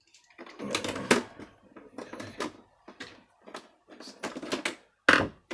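Irregular clicking and rattling of hand tools and plastic vacuum-cleaner housing parts being handled on a bench, with a sharp louder click near the end.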